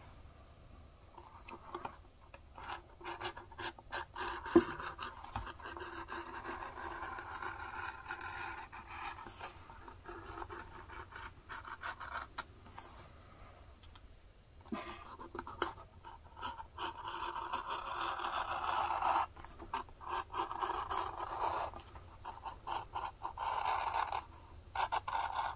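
X-Acto hobby knife blade drawn through leather on a plastic cutting mat: a scratchy rasping in several long cutting strokes, some lasting several seconds, with small clicks between them.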